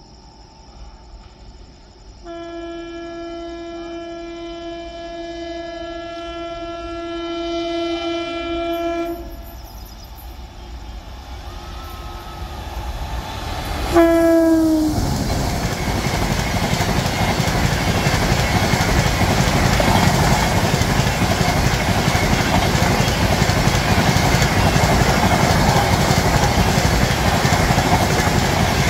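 WAP-7 electric locomotive sounding its horn in one long steady blast as it approaches, then a short blast about halfway through that drops in pitch as the engine passes. After that the Tejas Rajdhani Express coaches rush by at about 130 km/h, with a loud steady roar of wheels on rail and clickety-clack over the rail joints.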